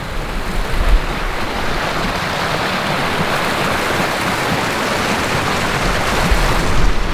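Rushing water from small waterfalls and streams swollen by heavy rain: a steady, loud hiss of running water.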